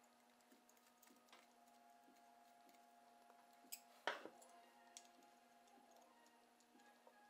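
Small metallic clicks as a screwdriver and the parts of a Stanley No. 3 bench plane are handled, with one sharper metal click about four seconds in, over a faint steady hum.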